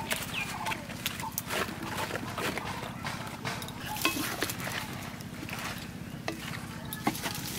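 Chopped taro stems dropping from a bamboo basket into an aluminium karahi and being stirred with a wooden spatula: scattered knocks and clatters against the metal pan. A few short animal calls sound faintly in the background.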